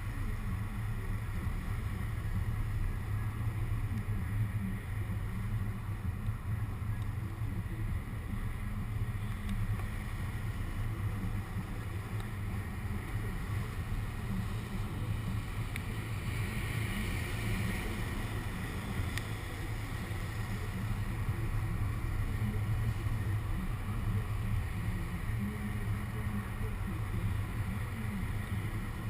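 Steady low rumble of a car with wind buffeting the camera's microphone, picked up by a GoPro suction-cupped to the car's window.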